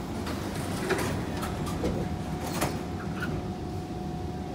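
Kawasaki C151 train's saloon doors sliding shut, a series of clunks and knocks as they close, the sharpest near the middle, over the train's steady rumble; a faint steady tone comes in partway through.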